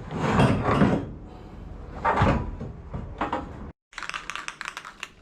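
Steel roll cage tubes scraping and knocking against the car body as the cage is slid back and lifted, with two heavy clunks in the first second and another about two seconds in. After an abrupt cut, a fast run of sharp clicking or rattling.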